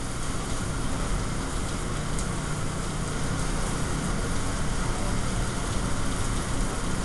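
Steady hiss and rumble of a busy restaurant kitchen line: food sizzling on the range under a running exhaust hood fan.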